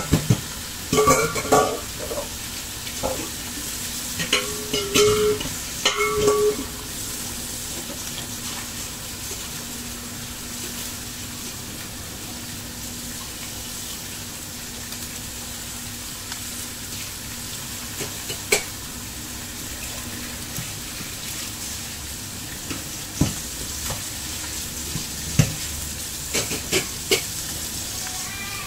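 Carp tail pieces sizzling steadily as they brown in hot oil in a wok, with scattered knocks and clatters of kitchen utensils and pans, busiest in the first few seconds and again near the end.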